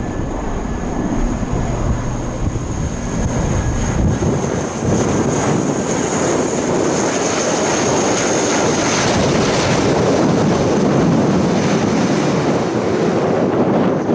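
Four-engine turboprop drone of an RCAF CC-130 Hercules on landing approach, growing louder about five seconds in as it passes close by. A high steady whine rides over it and fades out a little past halfway.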